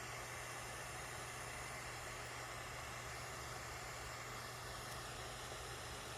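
Faint, steady hiss with a low hum from a ZHIWHIS portable radio in radio mode, not yet tuned to a station.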